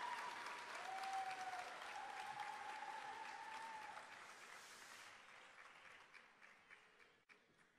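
Audience applauding, fading away over the last few seconds.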